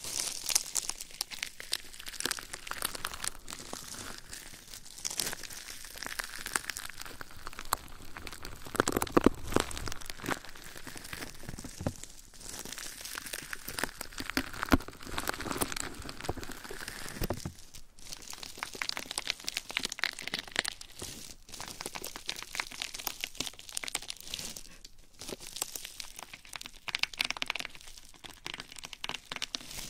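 Close-up crinkly, crackling rubbing and scratching on a binaural dummy-head microphone, an irregular run of crunchy clicks with a few brief pauses.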